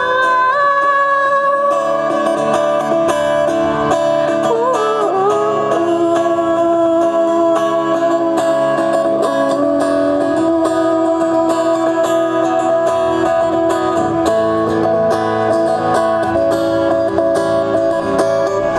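A live band playing an instrumental passage between sung lines, with guitars to the fore.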